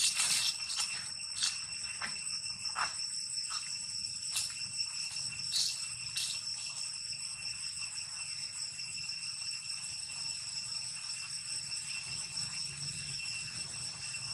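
A steady high-pitched insect drone: one unbroken whine with higher overtones. A few sharp clicks sound in the first six seconds.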